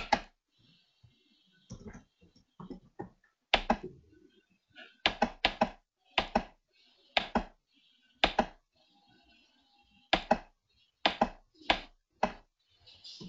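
Keys on a computer keyboard being struck: sharp, heavy taps at an uneven pace, some in quick pairs, as values are typed into fields.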